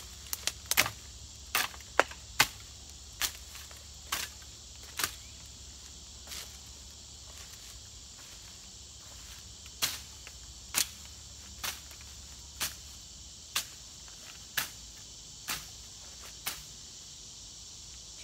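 A hand-held cane cutter blade chopping through tall grass stems in short, sharp strokes. A quick irregular cluster comes in the first few seconds, then after a pause a steady stroke about once a second.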